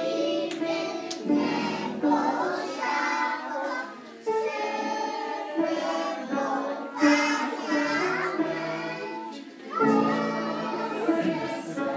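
A group of young children singing a song together, in phrases with brief pauses between them.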